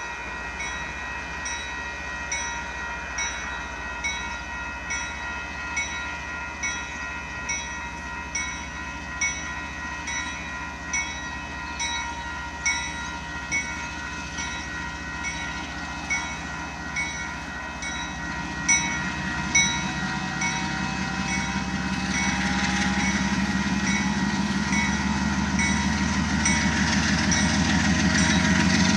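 A railroad bell ringing steadily, a little more than one ding a second, as a train approaches. The low rumble of the oncoming train grows from about two-thirds of the way through.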